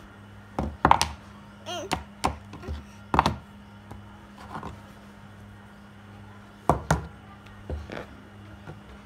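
A toddler knocking and tapping a mobile phone on a bed: sharp, irregular knocks in small clusters, with a brief high squeal from the child about two seconds in. A steady low hum runs underneath.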